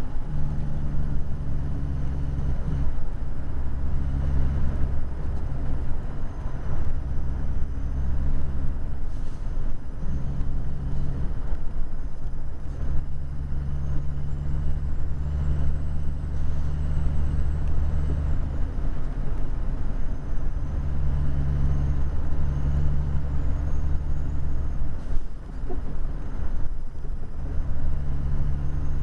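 Heavy truck's diesel engine running under way, heard from inside the cab as a steady low drone over road noise. Its pitch steps up and down and it dips briefly several times.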